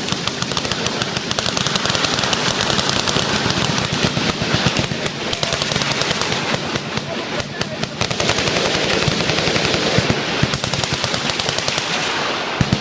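Several machine guns firing full auto at once, their bursts overlapping into continuous, rapid gunfire with no break.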